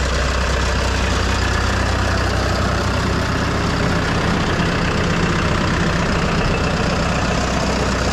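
The Rayco RG74T-R stump grinder's 70-horsepower Cummins diesel engine running steadily with a constant low hum.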